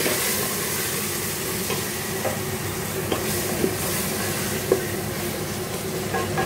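Curry masala sizzling in an open pressure cooker while a wooden spatula stirs it, with scattered light scrapes and knocks of the spatula against the pot.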